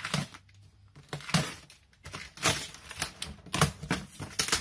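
A cardboard box being opened and its contents handled: a series of irregular sharp knocks, scrapes and rustles.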